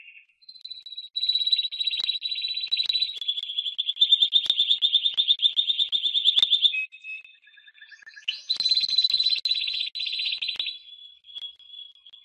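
Timbrado canary, a Spanish song-canary breed, singing long rapid trills and rolls. Two loud rolling passages are split by a short, softer break about seven seconds in, and a fainter trill comes near the end.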